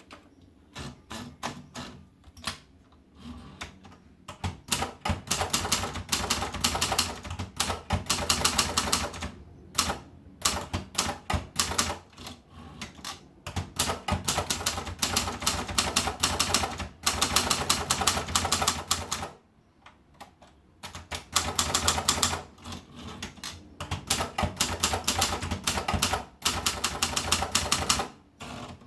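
Torpedo 10/40 manual typewriter being typed on: quick runs of key strikes in bursts of a few seconds, with short pauses between them.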